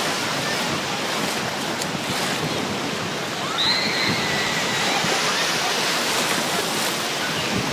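Surf breaking on a beach in strong wind, a steady rushing noise. About halfway through, a high-pitched call sounds for a second or so.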